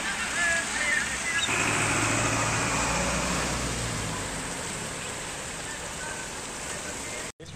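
A truck driving through floodwater on a road: its engine hums steadily under a hiss of water thrown up by its tyres. The sound comes in about a second and a half in and fades gradually as the truck moves away.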